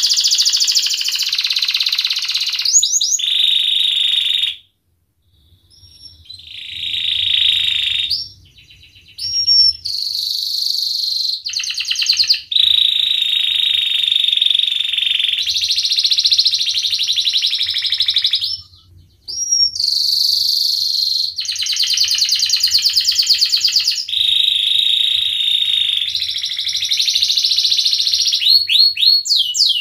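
Domestic canary in full song, singing long rapid rolling trills phrase after phrase, with brief pauses about five seconds in and again near nineteen seconds. Short whistled glides come between phrases, and a run of quick falling whistles comes near the end.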